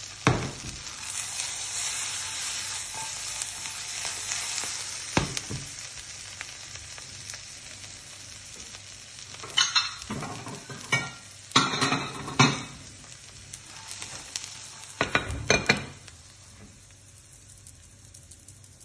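Butter sizzling in a steel frying pan as pieces of stinkhorn egg and garlic fry, the sizzle slowly fading. Short bursts of clatter and scraping from the pan being handled come about ten seconds in and again near the end.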